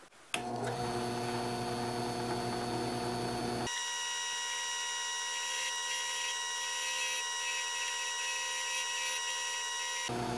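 Drill press spinning a cloth buffing wheel to buff paste wax on a walnut letter opener: a steady motor hum with a high whine. It comes on suddenly just after the start, and its tone changes abruptly a little under four seconds in.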